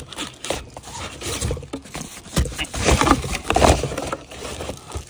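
Irregular clicks, knocks and scrapes of cordless power tools, batteries and their plastic packaging being handled, loudest from about two and a half to four seconds in.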